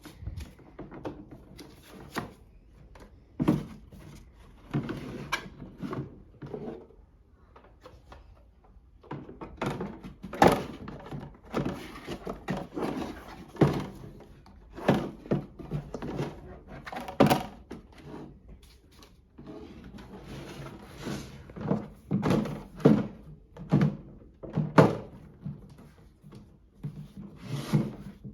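Irregular knocks, thuds and rubbing of a toy washing machine and its parts being handled as it is unpacked and fitted together.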